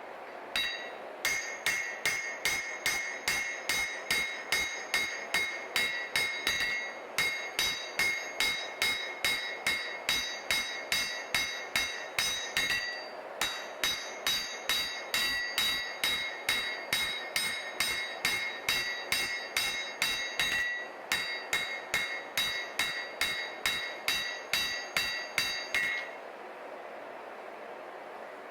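Hand hammer striking hot Damascus steel on an anvil, about three blows a second in runs with short breaks, each blow ringing with a bright metallic tone. The blows stop about two seconds before the end, leaving only a steady background rushing noise.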